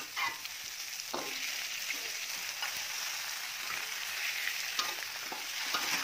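Stir-frying in a wok: sliced onion and chilli sizzle steadily in hot oil, with a metal spatula scraping and clicking against the pan every so often. Squid pieces go in once the aromatics are fragrant.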